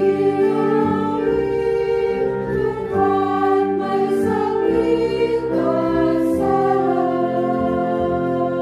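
A small choir of women singing a Tagalog hymn in parts, with long held notes.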